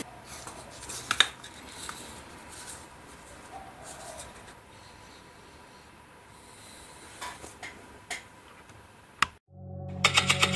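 A small scale-model ammunition belt rattling and clicking as it is handled: a few light, scattered clinks. Music with a regular beat starts near the end.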